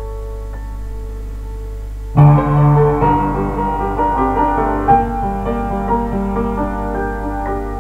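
Upright piano being played: a few soft held notes, then about two seconds in a loud low chord enters and a fuller passage of many overlapping notes follows. A steady low hum runs underneath.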